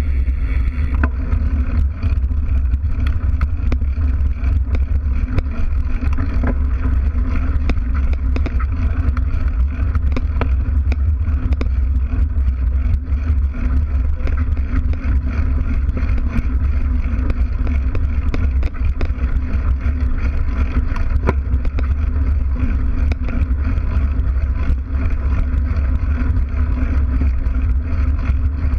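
Mountain bike's knobby tyre rolling over a sandy dirt track, heard through a GoPro mounted by the rear wheel: a steady low rumble of tyre and frame vibration, with frequent sharp ticks of grit and small stones.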